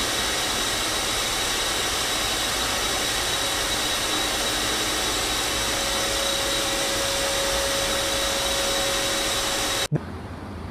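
Steady rushing air noise with a thin, steady high whine, joined about six seconds in by a lower steady hum. It cuts off suddenly near the end, leaving a much quieter low background.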